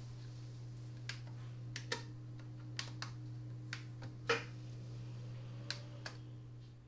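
Keys tapped one at a time: light, sharp clicks at an uneven pace, about nine over several seconds, over a steady low hum.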